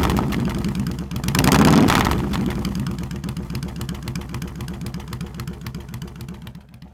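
Yamaha V Star 1100's air-cooled V-twin heard at the exhaust: one throttle blip about a second and a half in, then it settles back to a steady idle that fades away near the end.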